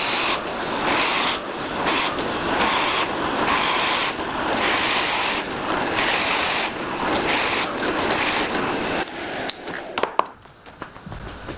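Wood being worked by hand with an abrasive in rhythmic back-and-forth strokes, about one stroke every two-thirds of a second. The rubbing stops about nine and a half seconds in, followed by a few light clicks and knocks.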